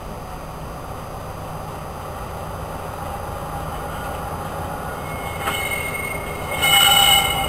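DB Class 294 diesel shunting locomotive running light as it approaches, its low engine rumble growing steadily louder. There is a single click about five and a half seconds in, then the wheels squeal near the end, a loud high screech with several tones at once.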